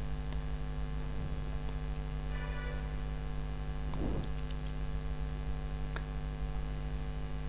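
Steady electrical mains hum picked up by the recording, with a faint click about six seconds in.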